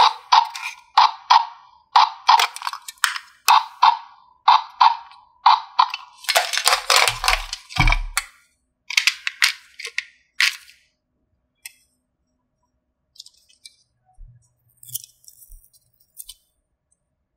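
A quick series of sharp clicks and rattles, about two a second, with a couple of dull thuds around the middle, thinning to a few faint scattered clicks after about ten seconds.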